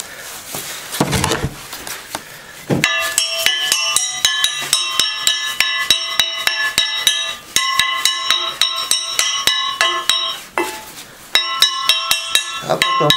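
A hammer striking a freshly welded steel-bar stove grate to knock the scale off the welds. The quick, ringing metallic blows come about four a second, starting about three seconds in, with a short break near the end.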